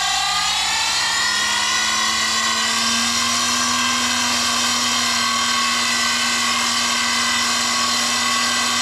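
Variable-speed Hamilton Beach reversing motor driving a Levin 8mm jeweler's lathe by belt, running with a steady high whine. Its pitch rises and settles within the first second, then holds.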